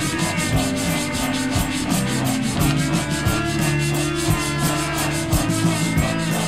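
Hand sanding of the metal bell housing of a 1982 Royal Model 880 with 500-grit sandpaper: quick, even back-and-forth rubbing strokes, about four or five a second. Music with held notes plays under the sanding.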